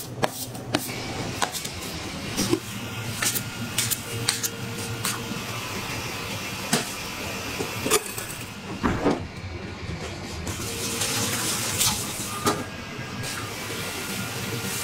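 Dough scrapers knocking and scraping on a stainless steel worktable, a string of irregular sharp clicks and taps over a steady background hum and hiss.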